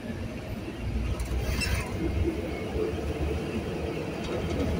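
Vehicle driving on a wet road, heard from inside the cab: a steady low rumble of engine and road noise, with a brief higher-pitched sound about a second and a half in.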